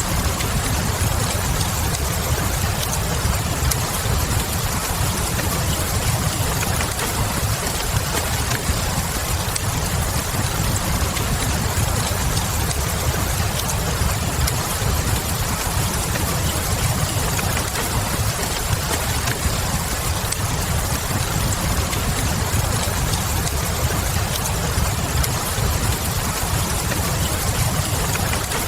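Ambience of steady rain hiss over a constant low rumble, with faint scattered crackles from a wood fire.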